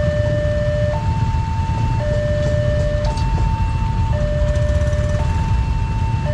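Railway level-crossing warning alarm sounding, an electronic two-tone signal alternating between a lower and a higher note about once a second, warning of an approaching train. Beneath it is the low running of idling motorcycle engines queued at the closed crossing.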